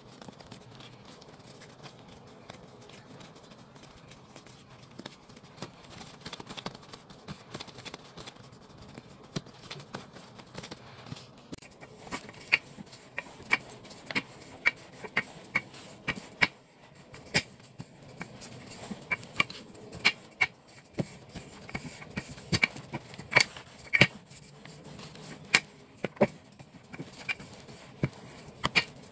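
Bread dough being pressed by hand and then rolled out with a wooden rolling pin on a plastic-covered table: soft rubbing and patting at first, then from about twelve seconds in, a run of irregular sharp clicks and knocks as the pin works the dough.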